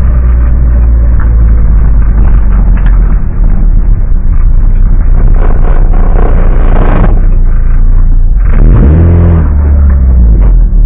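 Competition car's engine heard loud from inside the stripped cabin, running at low speed, then revved up and down several times in the last couple of seconds.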